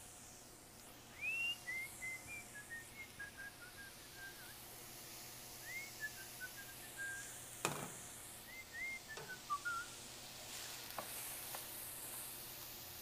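A person whistling a tune in three short phrases of gliding notes, with a single clank partway through. Near the end, vegetables sizzle faintly in a stainless steel sauté pan as a wooden spoon stirs them.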